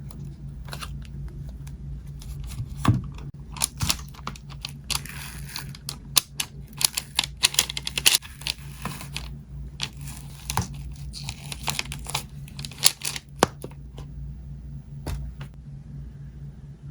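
Crinkling and tearing sounds with many sharp crackles, busiest in the middle and thinning out near the end.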